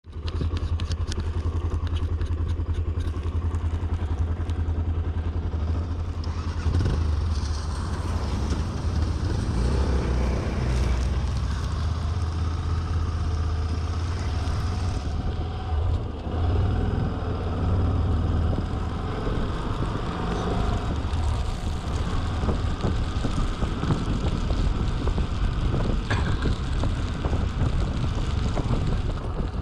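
Motorcycle being ridden, its engine running steadily under a continuous noisy haze.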